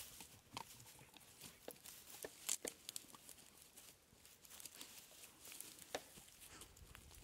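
Faint, scattered crackling and rustling of dry grass being disturbed, in short irregular clicks with a few louder ones about half a second, two and a half seconds and six seconds in.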